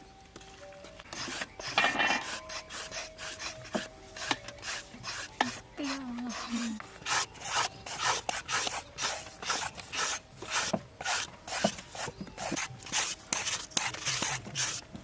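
Repeated rasping scrapes, about three a second, starting about a second in: food being shredded by hand.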